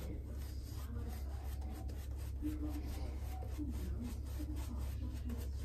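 Soft, repeated rubbing of a 26 mm synthetic-knot shaving brush painting soap over the face, as water is worked into the soap to build the lather.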